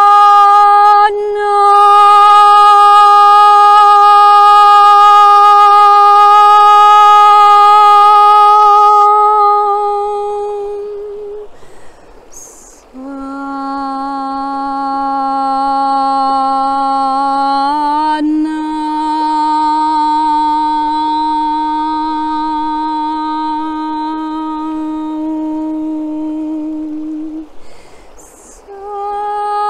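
A woman's voice toning long, wordless sustained notes with audible breaths between them. A high note is held for about ten seconds, then after a breath a lower note that steps up slightly about halfway through.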